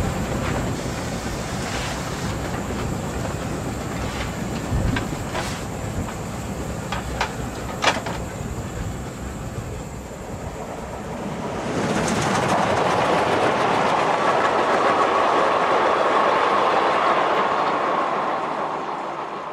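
Danish steam locomotive R 946 and its train on the move: steady running noise with a few sharp clicks, then, about twelve seconds in, a louder rush as the train runs past on the line.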